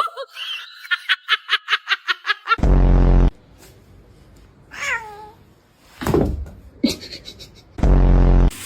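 A person laughing in rapid bursts for about two and a half seconds. Two loud, low, steady tones, each under a second, come about two and a half seconds in and near the end, with a short call falling in pitch between them.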